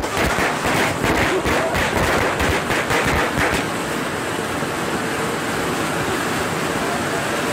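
Ground fountain firework spraying sparks with a loud, steady hiss. For the first three and a half seconds it is mixed with rapid crackling pops, then only the even hiss goes on.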